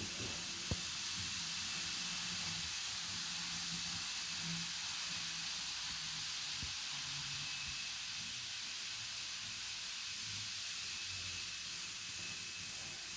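Steady faint hiss of a running N gauge model railway layout, with a thin high whine and a low hum that come and go, and a single sharp click just under a second in.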